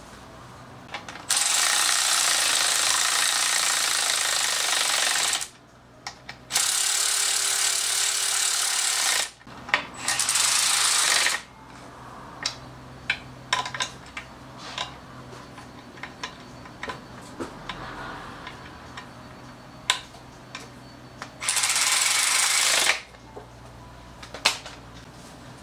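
A power ratchet runs in four bursts, driving bolts down into a transmission mounting plate: three long runs in the first half and a short one near the end. Between the runs come light metallic clicks and taps of the socket and bolts.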